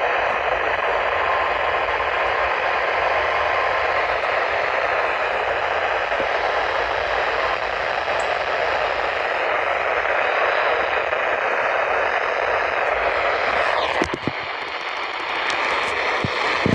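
Steady hiss of static from a NOAA weather radio receiver on a weak, noisy signal, with a faint steady tone under the hiss for the first few seconds. The static briefly drops out with a few clicks near the end.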